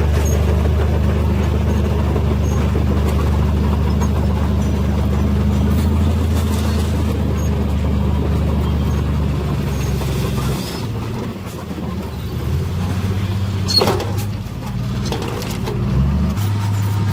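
Heavy diesel engine of earthmoving machinery running steadily. Its note drops and quietens about two-thirds of the way through, with a sharp metallic knock soon after and a brief rise in pitch near the end before it settles on a new steady note.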